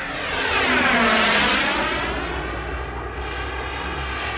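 Radio-controlled model airplane's engine flying past, swelling to its loudest about a second in and dropping in pitch as it goes by, then running on more quietly.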